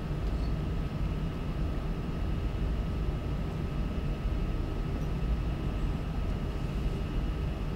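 Steady low rumble of room background noise, with a faint steady high whine above it.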